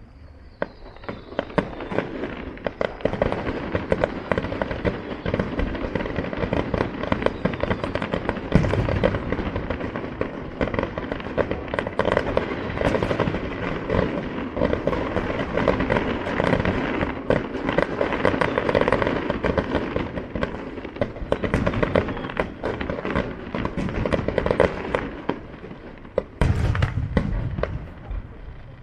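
Fireworks display: a dense, continuous barrage of rapid pops and crackling bangs that builds up over the first couple of seconds, with a few deeper booms near the end.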